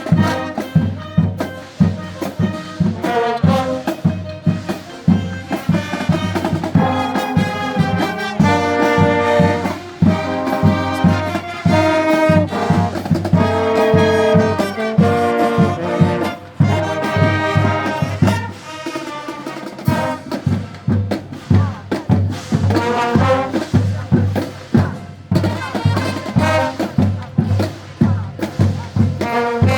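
Marching wind band playing: brass carrying a tune over a steady marching drum beat, with long held brass chords through the middle.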